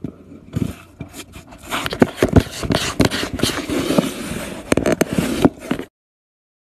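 A cat scrabbling at a cardboard box from inside: irregular scraping and rustling of cardboard with many sharp clicks, cutting off suddenly near the end.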